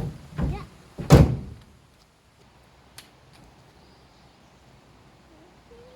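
Three heavy thumps within the first second and a half, the last one the loudest.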